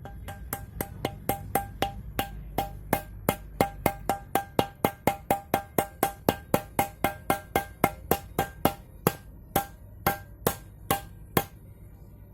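Hammer blows on metal in a steady run of ringing strikes, about three to four a second, spacing out and stopping near the end: driving a wheel hub bearing into its housing.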